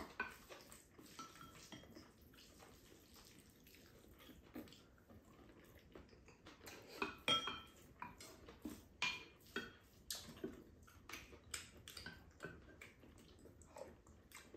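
Wooden spoons and chopsticks tapping and scraping against ceramic bowls during a meal: faint, irregular clicks that come more often in the second half, a few of them ringing briefly like a struck bowl.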